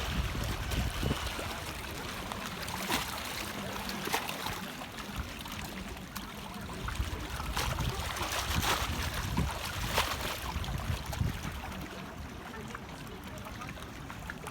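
Sea water splashing and lapping, with irregular small splashes over a low rumble.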